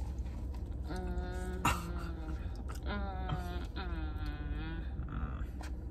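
A person humming "mmm" while eating, in two drawn-out, wavering hums of about one and two seconds, over a steady low rumble.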